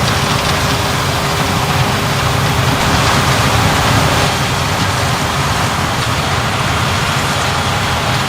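Claas Lexion 7700 Terra-Trac combine harvester running under load while harvesting corn. It makes a loud, steady engine drone under an even rushing hiss of the threshing machinery and crop, with a thin steady whine held throughout.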